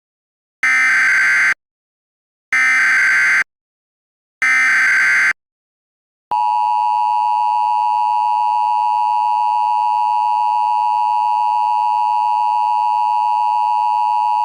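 Emergency Alert System alert start: three short bursts of warbling SAME header data tones about two seconds apart, then, about six seconds in, the loud steady EAS attention tone begins and holds.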